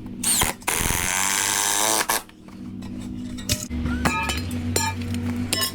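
Background music with held steady notes and a rising sweep in the first two seconds, with a few light metallic clinks in the second half.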